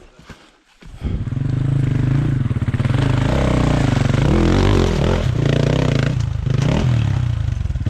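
Two-stroke enduro dirt bike engine revving hard and unevenly, its pitch rising and falling, coming in suddenly about a second in.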